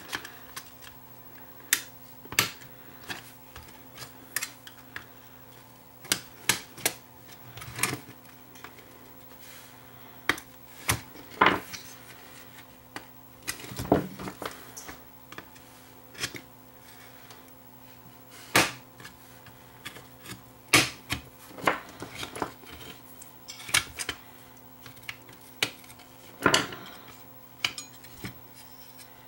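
Plastic retaining clips and the circuit board clicking and knocking against the plastic case of a Fluke 12 multimeter as the board is prised free with a small screwdriver. Scattered sharp clicks and taps come at irregular intervals, some louder than others.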